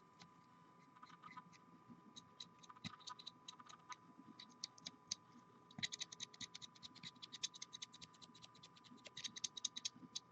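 Paintbrush bristles scratching in quick strokes across a plastic miniature, drybrushing the raised ridges. The strokes are sparse at first and then come rapid and dense for the last few seconds, over a faint steady high hum.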